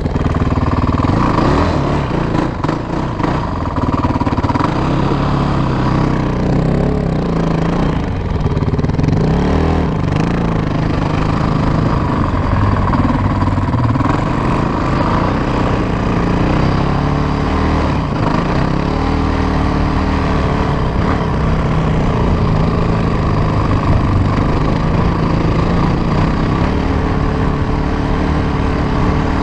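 Honda TRX450ER quad's single-cylinder four-stroke engine with a piped stock exhaust, running hard under throttle while being ridden. Engine speed rises and falls over the first ten seconds, then holds steadier.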